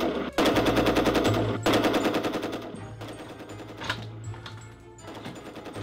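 Rapid machine-gun fire sound effect in three bursts that stop about three seconds in, with background music underneath.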